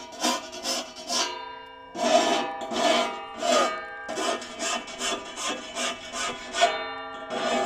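A file rasping across the teeth of a handsaw being sharpened, in quick repeated strokes about two to three a second. The steel blade rings with a screeching tone on each stroke.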